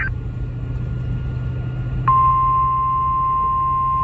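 NOAA Weather Radio 1050 Hz warning alarm tone: a single steady, piercing beep that starts about two seconds in and holds, signalling that a warning broadcast follows. Under it, a low steady hum.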